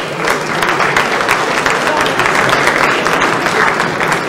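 Audience applauding: a dense run of many claps, with voices mixed in.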